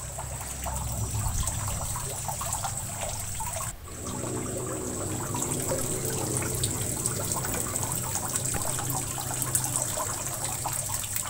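Steady rushing background noise like running water, with a low hum and a faint high steady tone. It dips briefly about four seconds in.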